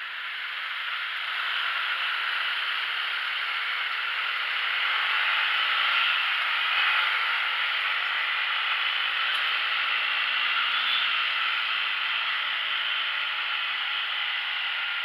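Yamaha Sniper 150 single-cylinder motorcycle riding in traffic, heard from on the bike as a steady whir of engine and wind that swells over the first couple of seconds as it pulls away. The engine is running quiet and smooth, which the owner credits to a tune-up and a replaced rubber damper.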